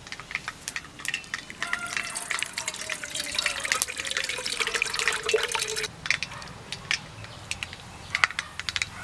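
Tamarind water being squeezed by hand and poured from a clay pot into a steel bowl, a splashing pour that stops about six seconds in. Scattered sharp crackles run throughout, from mustard seeds spluttering in hot oil.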